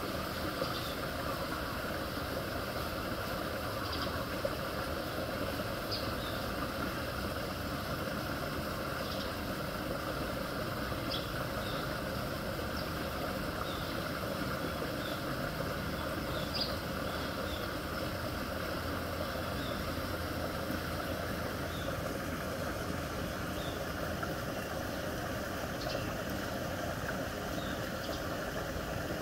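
Floodwater pouring steadily into a partly submerged concrete culvert pipe, a continuous rushing gurgle, with faint short high ticks scattered through it.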